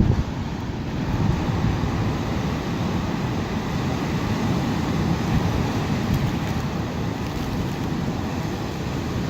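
Strong blizzard wind blowing as a steady low rush, without a break.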